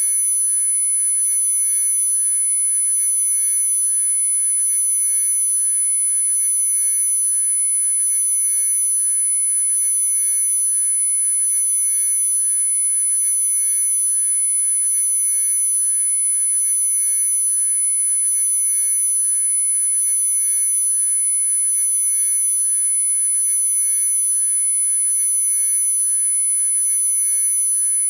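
Electronically generated Rife-frequency sound-therapy tones: several pure sine tones held at once at unrelated pitches, perfectly steady, with the strongest a very high tone above the rest.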